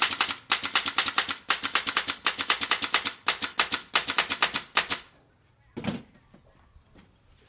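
Pneumatic nail gun firing in rapid succession into particleboard panels: a fast train of sharp shots, several a second, that stops about five seconds in. A single knock follows about a second later.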